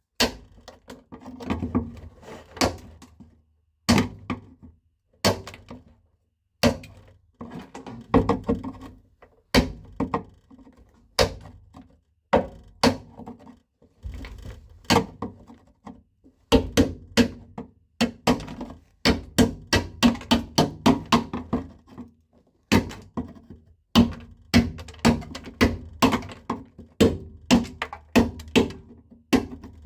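Repeated sharp knocks of a tool chipping old sound-deadening off a car's steel floor pan. The strikes are spaced out at first, then come in quick runs of two or three a second.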